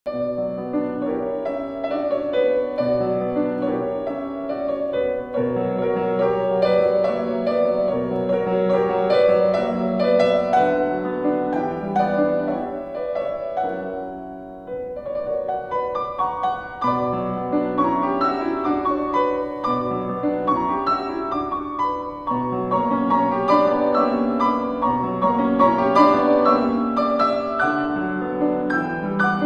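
Instrumental background music led by piano, with held chords that change every second or two; it softens briefly about halfway through, then builds again.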